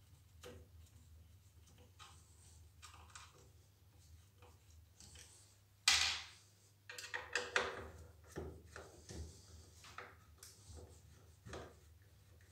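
Faint clicks, scrapes and rubbing of a Phillips screwdriver and hands working on a pressure washer's plastic handle while its screws are taken out. One sharp knock about six seconds in is the loudest sound, followed by a run of smaller clicks and scrapes.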